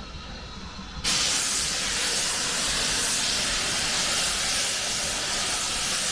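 Steam locomotive letting off steam: a loud, steady hiss that starts suddenly about a second in, over a low background rumble.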